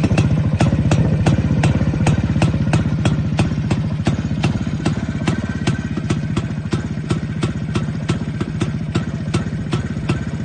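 Yezdi Classic D250's 250 cc single-cylinder two-stroke engine idling steadily, with a sharp tick repeating about three to four times a second.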